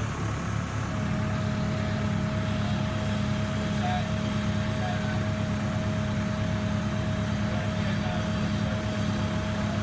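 Telehandler's diesel engine running steadily, picking up revs about a second in, with a thin steady whine over it from then on.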